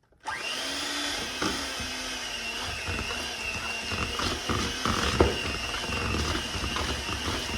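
Electric mixer running steadily as it beats cream cheese in a bowl, a motor whine with a few sharp knocks of the beaters against the bowl. It starts about a quarter second in.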